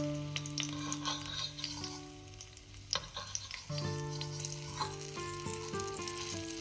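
Food frying in oil in a pan, sizzling and crackling steadily, with soft background music notes underneath.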